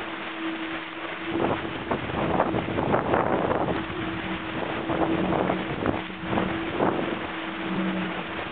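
Wind buffeting the microphone and water rushing and slapping along the hull of an Open 5.70 sailboat sailing fast in a strong breeze, with a steady low hum underneath.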